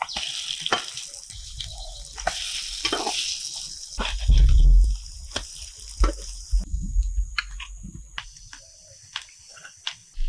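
Rice fritters sizzling as they shallow-fry in oil in a metal pan, with frequent clicks and scrapes of a metal spatula against the pan as they are turned. A heavy low thump comes about four seconds in.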